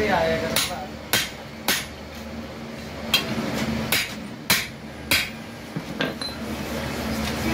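Hand hammer striking a steel shaft held upright in a motorcycle crankshaft flywheel clamped in a vise: about eight sharp metal-on-metal blows, irregularly spaced, the last one weaker.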